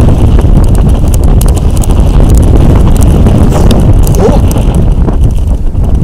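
Strong wind buffeting the microphone: a loud, steady low rumble with scattered clicks.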